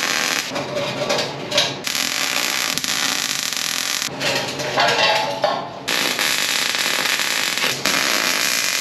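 Wire-feed welder arc running on a stainless steel beer keg, a steady loud hiss laid down in several welds, with short breaks about 2 seconds in and near 6 seconds in, and a weaker stretch just before the second break.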